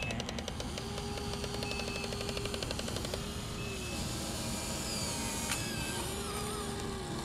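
Small electric motors of Huina RC excavators whining as the arms and buckets work, in three or four runs that each rise in pitch, hold, then drop away. A fast mechanical clatter of gears runs under them and fades out partway through.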